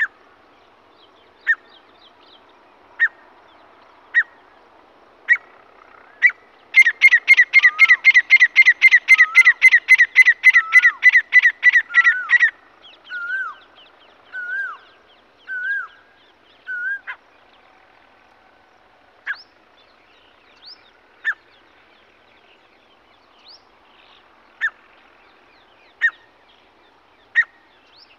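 Grey francolin calling: sharp single notes every second or so, then a loud, rapid run of repeated calls for about six seconds with lower wavering notes woven in. It trails off into a few wavering notes and then sparse single calls.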